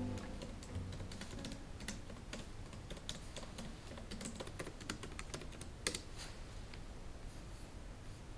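Typing on a MacBook Pro laptop keyboard: quick, light key clicks in irregular runs, thinning out after about six seconds.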